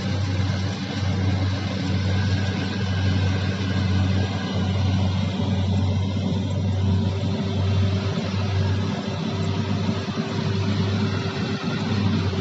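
Kubota DC70 combine harvester engine running steadily under working load, a continuous drone; a higher steady tone comes in about halfway through.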